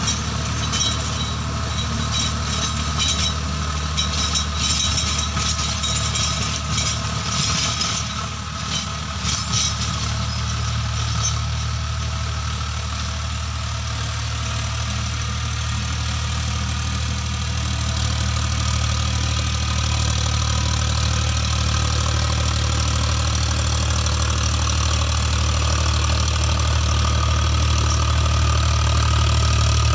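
Tractor diesel engine running steadily while it drives a rotavator through the soil, with irregular clicking rattles in the first ten seconds; the engine grows a little louder near the end.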